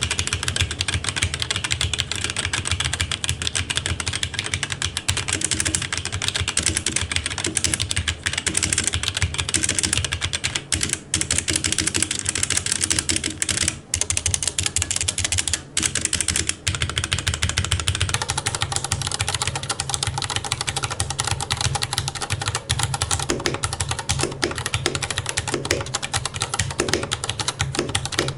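Typing on a Keychron C1 mechanical keyboard with Gateron Red linear switches: a fast, continuous stream of key clicks. The keystrokes become more distinct and separate about eighteen seconds in.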